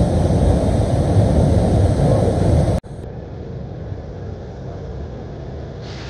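Steady rushing roar of a waterfall pouring into its plunge pool. About three seconds in it drops suddenly to a quieter, steady rush.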